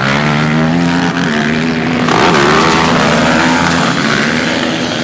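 Several sport quad (ATV) engines revving hard and accelerating away together off a race start, loudest a couple of seconds in.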